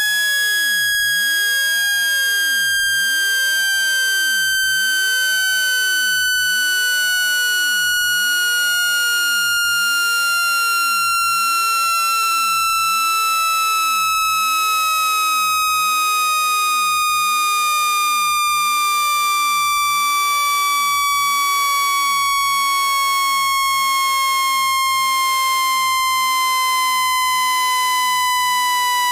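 Electronic speaker-cleaning tone, the kind played to shake water and dust out of a phone speaker: one continuous buzzy tone with overtones, falling slowly and steadily in pitch.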